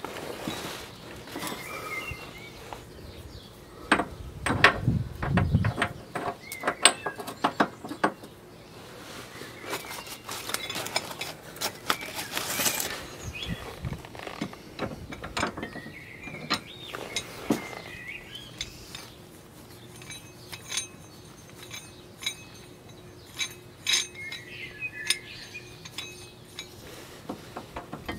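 Metal hand tools clinking and knocking against steel front suspension parts, a socket wrench being fitted and handled at the control arm mounting. The clicks and knocks come irregularly, thickest about four to eight seconds in.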